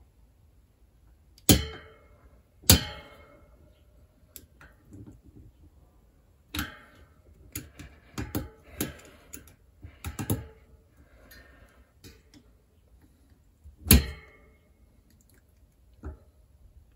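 Sharp, irregular knocks and clicks of metal parts and tools, with single loud knocks about a second and a half in, again just after, and near the end, and a cluster of smaller taps in the middle, while a dust cover is worked onto a bicycle's rear hub.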